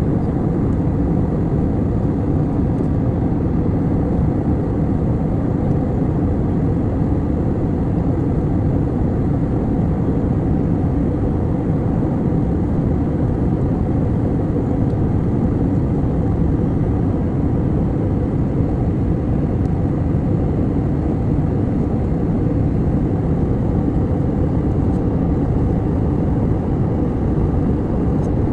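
Airliner cabin noise in flight: a steady low rumble of engines and rushing air.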